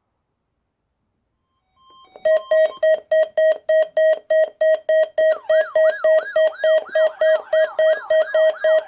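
Weather alert radios sounding their alarms, set off by a NOAA Weather Radio Required Weekly Test. A loud beeping alarm starts about two seconds in at about three beeps a second, and about five seconds in a second alarm joins it with a repeated falling siren-like sweep.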